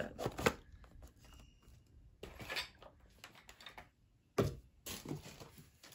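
Light clicks, taps and rustles of cosmetics packaging being handled, with a louder burst of handling noise about four and a half seconds in.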